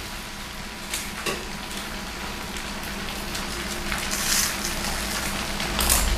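Egg fried rice sizzling in a pan on a portable electric hotplate, with a couple of sharp clicks of the spatula against the pan about a second in. The sizzle grows louder near the end.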